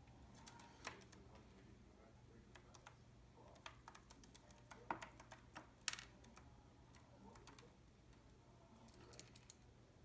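Faint, irregular clicks and taps from budgerigars pecking at seed and wood on their play stand, the loudest about five and six seconds in.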